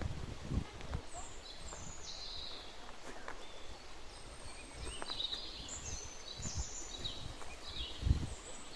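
Small birds singing: a run of short, high chirps and twitters, busiest around the middle. Low thuds of footsteps on a forest path run underneath, the strongest near the end.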